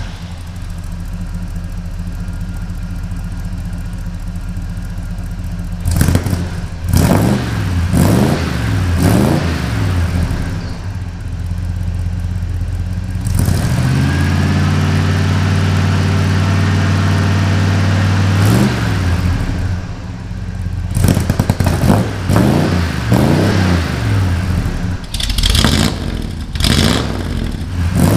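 Small-block Chevy V8 in a 1977 Chevy C10 running through new AP Xlerator stainless mufflers with no catalytic converters, with a slight rumble. It idles steadily, then is blipped several times, held at a higher speed for a few seconds around the middle, and blipped again near the end.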